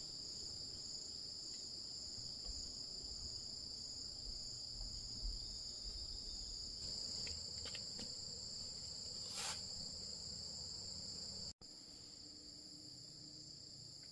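Insects shrilling steadily, cricket-like, in two high unbroken tones. The sound drops out for an instant at a cut after about eleven and a half seconds, then carries on a little quieter.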